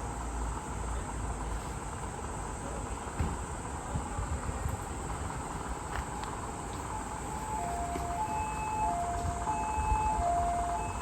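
An emergency vehicle's two-tone siren, the high-low 'pee-po' pattern of a Japanese ambulance, comes in about two-thirds of the way through, alternating between two steady notes about every half second over steady background noise.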